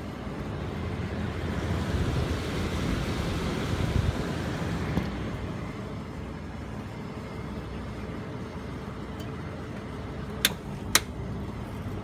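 Rasonic window air conditioner running in cool mode on high fan, its outdoor side heard up close: a steady hum with rushing air. A swell of rushing noise rises and fades over the first five seconds, and two sharp knocks come half a second apart near the end.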